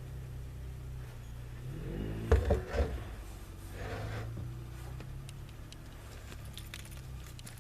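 Plastic plumbing parts being handled and pushed into place: a short rising squeak, then a few sharp knocks about two and a half seconds in, and a fainter scrape after, over a steady low hum.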